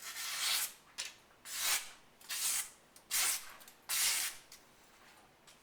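Freshly sharpened kitchen knife slicing through a sheet of paper in about five quick strokes, each a short hiss about half a second long. It is the paper-cutting sharpness test, and the edge cuts cleanly.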